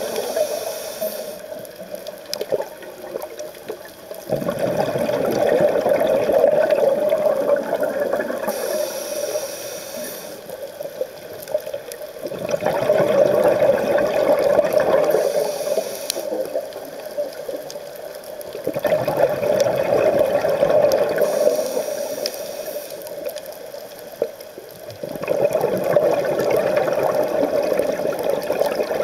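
Scuba diver breathing through a regulator underwater, heard through the camera housing: a short hiss on each inhale and a longer bubbling rush on each exhale. The cycle repeats about every six seconds, four times.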